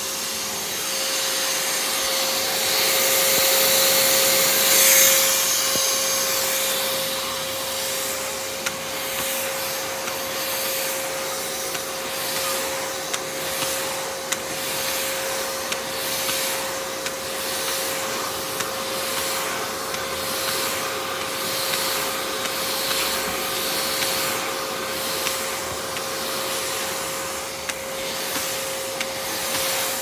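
Craftsman vacuum running steadily with a constant motor whine, its floor tool drawn back and forth over carpet so the suction noise swells and fades with each stroke. It is loudest for a few seconds near the start.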